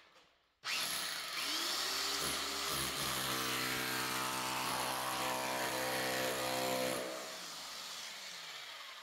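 Corded electric rotary hammer with a chisel bit chiselling out a cracked floor tile and its thinset. It starts suddenly about half a second in, picks up speed, runs steadily, then is let off about seven seconds in and winds down.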